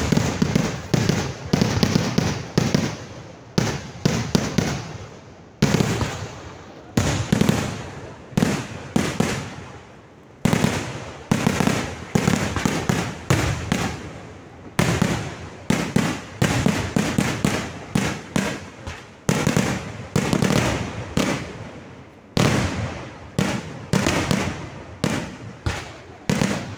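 Kerala vedikettu fireworks going off in a continuous barrage of loud bangs, several a second, each dying away in an echo. There are brief lulls every few seconds.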